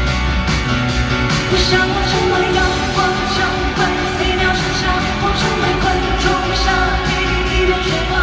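Live pop-rock band music with a steady drum beat, about two beats a second, and a voice singing over it.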